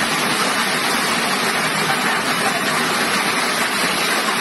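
Floodwater rushing in a torrent down a street: a loud, steady rushing noise.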